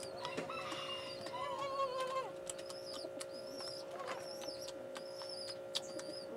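Small birds chirping repeatedly in short, high calls over a steady hum, with a few lower wavering calls in the first two seconds and scattered light clicks.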